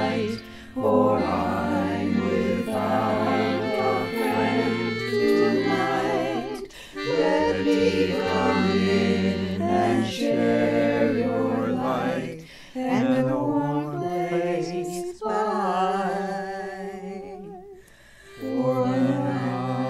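Women's vocal group singing in several-part harmony, with held notes and vibrato, and brief pauses between phrases.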